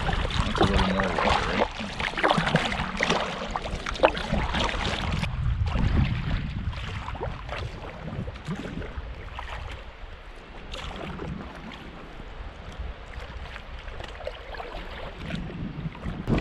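Wind buffeting the microphone over water splashing and lapping around a canoe on the water. It is louder and busier for the first five seconds, then eases off, and picks up again near the end.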